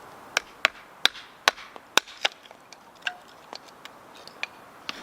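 Burning firewood crackling and popping: sharp, irregular snaps, about two or three a second, some of them loud.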